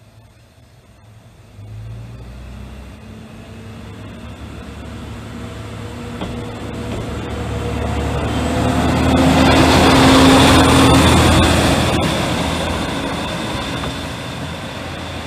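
Nishikigawa Railway single diesel railcar pulling away from a station: its engine picks up about a second and a half in, building as the car accelerates past, loudest with a whine about two-thirds of the way through, then fading as it runs off.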